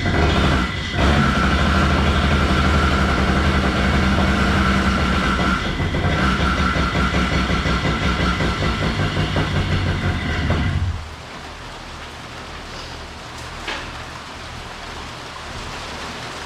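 Vittorazi Moster 185 Plus single-cylinder two-stroke paramotor engine catching, faltering for a moment, then running for about ten seconds before it cuts out suddenly. It runs unevenly at idle, the rough idle the owner is troubleshooting.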